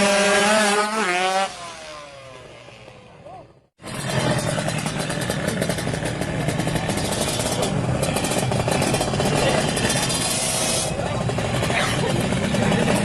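Kawasaki Ninja 150R two-stroke engine running, with a sudden break to silence about four seconds in before the engine sound resumes.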